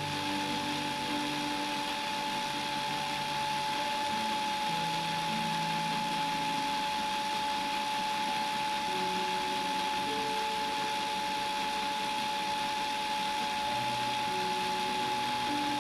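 Small battery-powered electric motor running steadily, turning the repaired fishing rod, with a constant whine over a hiss.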